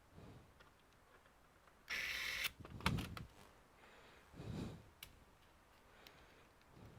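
Hands working on a laptop's parts: a short scraping hiss about two seconds in, then a few light clicks and soft knocks.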